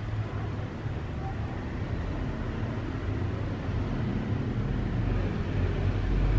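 A low, steady rumbling hum that grows somewhat louder toward the end, with no distinct splashes or knocks.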